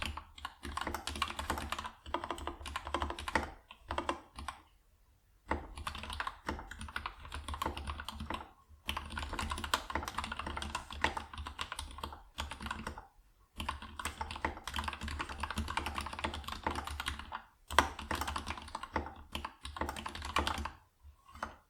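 Fast typing on a Kira 96 hotswap mechanical keyboard with lubed Gateron Yellow linear switches and PBT keycaps, in runs of a few seconds broken by short pauses, with a duller stabilized long key now and then.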